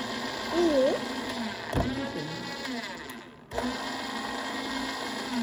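Sharp Healsio juicepresso slow juicer running as it presses mandarin oranges: a steady motor hum that drops out briefly about three and a half seconds in, then carries on.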